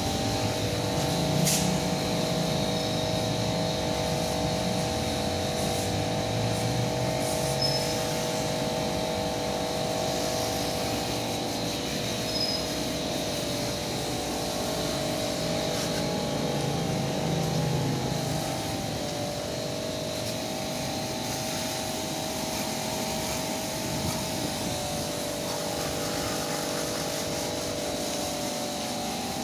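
A steady machine hum holding several even tones. A low rumble swells a few times, most strongly near the start and about halfway through.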